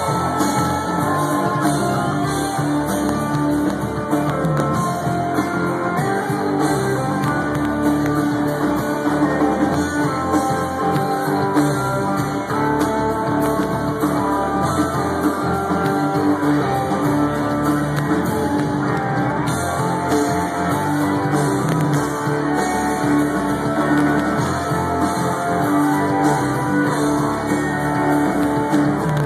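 Live band music played loud through a concert sound system, with guitar over a continuous beat.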